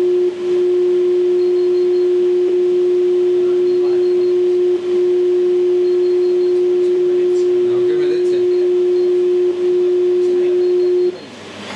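A steady single tone from a ham radio receiver: another station's unmodulated CW carrier on 15 m, sent as a test signal so the antennas' signal strength can be compared. It dips briefly four times and cuts off about a second before the end.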